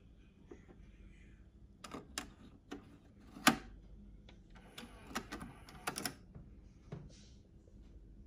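Plastic and metal clicks and clunks of a Technics RS-B965 cassette deck being handled as a cassette is loaded: a few light clicks, one sharp loud click about three and a half seconds in, then a quick cluster of clicks a couple of seconds later and a last one near the end.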